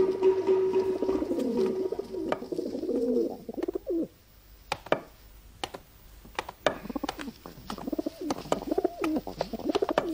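Pigeons cooing: repeated low, warbling coos, quieter for a couple of seconds in the middle, with a few sharp clicks among them.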